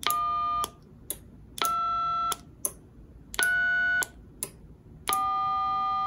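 Four DTMF keypad tones sent from a Baofeng BF-F8HP handheld radio while transmitting, each a steady two-note beep with a second or so between them and short clicks in the gaps; the last is held longer. Their pitches match the digits 1, 2, 3 and 4, and tone 4 is the code that switches channel 4 of the DTMF relay the lamp is wired to.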